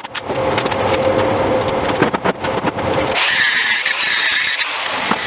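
Angle grinder running with a steady whine, then grinding hard into steel about three seconds in, a loud high hiss for a second and a half before easing back.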